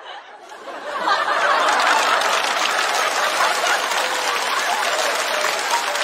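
Studio audience laughing and applauding, swelling about a second in and then holding steady.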